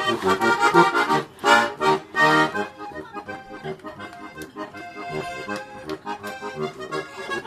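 Button accordion playing a lively traditional tune in chords with a steady beat, loud for the first couple of seconds and then softer.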